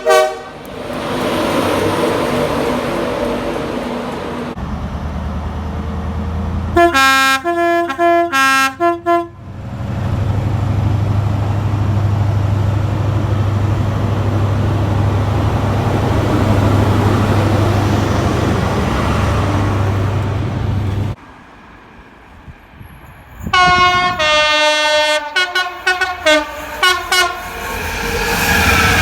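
Train horns sounded in runs of short blasts that switch between pitches: one run about seven seconds in and a longer, tune-like run about twenty-four seconds in. Between them a train runs past with a steady low engine drone, and train running noise fills the rest.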